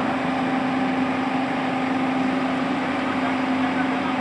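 Excavator's diesel engine running at a steady speed, one constant hum with no knocks or changes.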